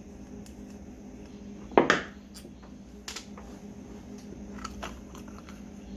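Small carburetor parts being handled on a workbench: light clicks with one louder clack about two seconds in, over a steady low hum.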